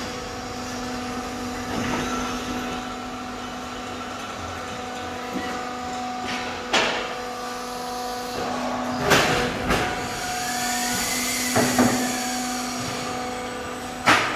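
Automatic fly ash brick plant running: a steady machine hum broken by several sharp metallic clanks, with a faint whine that rises and falls near the middle.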